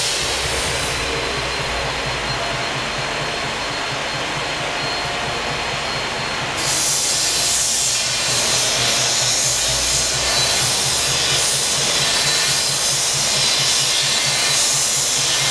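Steady workshop machinery noise, a power tool or machine running continuously with a fast, even low pulse underneath; it grows louder about six and a half seconds in.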